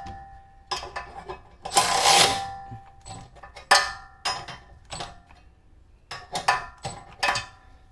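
Metal parts and tools clinking and clanking while being handled: about eight or nine short, sharp knocks scattered through, several with a brief metallic ring.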